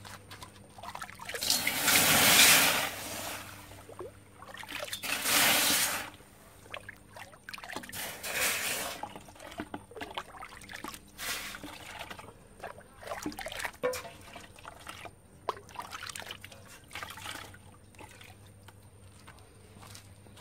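Ladlefuls of water poured over a freshly tinned frying pan and splashing into a bucket below, cooling and rinsing the hot pan. Two loud pours come a couple of seconds in and about five seconds in, followed by smaller pours and trickles.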